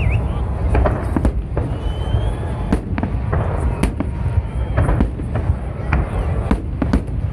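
Fireworks display: a dense barrage of aerial shells bursting in rapid, irregular bangs over a continuous low rumble, with a few short whistles.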